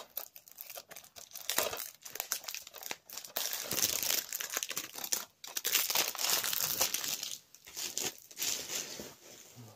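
Plastic packaging crinkling and rustling in irregular bouts while a DVD is handled and unwrapped, busiest through the middle.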